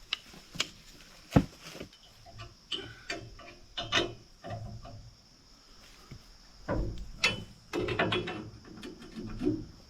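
Hand tools working on the post hole digger's hitch as it is tightened down: sharp metallic knocks and ratchet clicks, the loudest knock about a second and a half in. Low grunting comes in during the second half.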